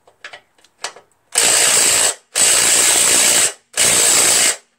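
DeWalt 12-volt brushless 3/8-inch impact wrench hammering in three bursts of about a second each, after a few light clicks of the socket being fitted. It is working on a seized engine mounting bolt under a mower deck that will not break loose.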